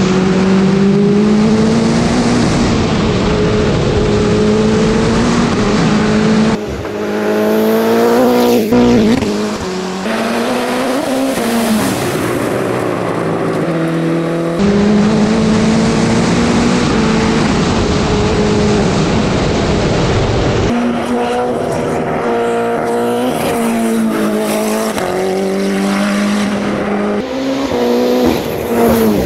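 Wolf GB08 F Mistral sports-prototype race car engine at full throttle up a hill climb. It revs high, its pitch climbing and then dropping sharply at each gear change, again and again.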